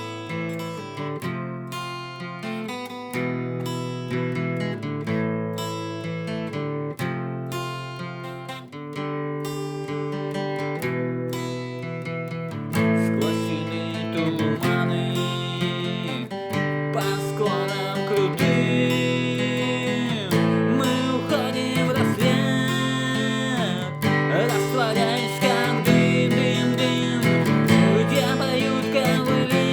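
Instrumental music: picked acoustic guitar, with a fuller, louder arrangement joining about 13 seconds in and a wavering melody line on top.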